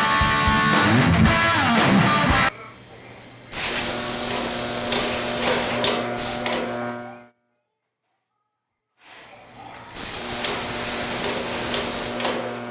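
Guitar music for the first couple of seconds, then a paint sprayer spraying: a loud hiss with a steady low hum under it, about three and a half seconds long, a pause, and a second hiss of about two seconds.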